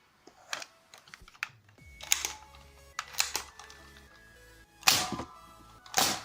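Nerf Night Finder plunger blasters being primed and fired: a series of sharp plastic clacks and snaps, the two loudest about a second apart near the end.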